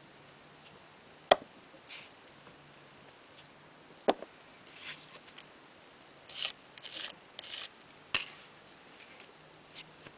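Nail stamping on a metal image plate: short scraping swishes of polish being scraped across the plate, mostly in the second half, and three sharp clicks a few seconds apart from tools knocking on the plate and table.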